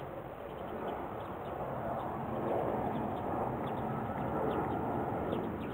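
Outdoor ambience: faint, scattered bird chirps over a steady rushing background noise that swells in the middle.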